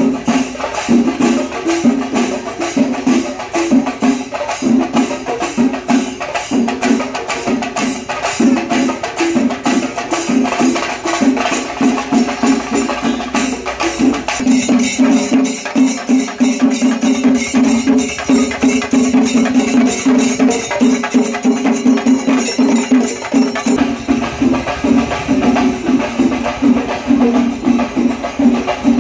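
Loud percussion-led music: fast, dense drum strokes with jangling cymbals over a steady low tone.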